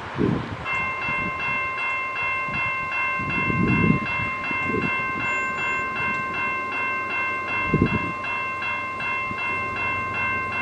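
Railroad crossing warning bell starts ringing about a second in and keeps up a rapid, even clang: the crossing has activated for an approaching train. Gusts of wind buffet the microphone now and then.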